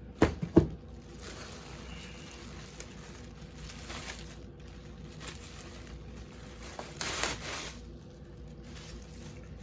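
Handling and packaging noise as a replica championship belt is unpacked: a few sharp knocks in the first second, then faint rustling, with a louder rustle about seven seconds in.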